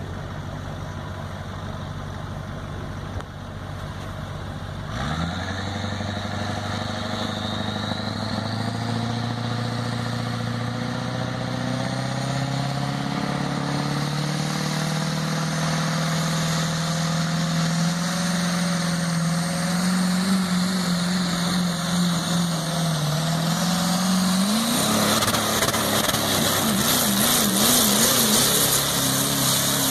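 Diesel pickup truck engine revving up about five seconds in and held at high revs while hitched to a pulling sled. Near the end it pulls the sled down the track, the revs climbing and then wavering under load.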